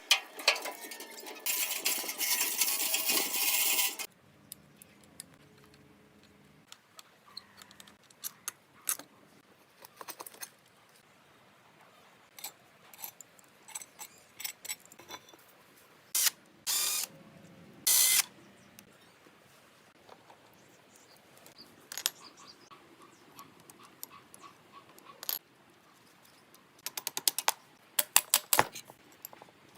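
Hand-tool work on a car: steady scraping for the first few seconds, then scattered sharp metallic clicks and taps, with a quick run of clicks near the end.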